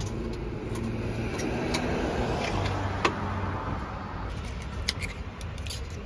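Road traffic: a car going by, a low rumble that swells and then eases, with a few sharp clicks.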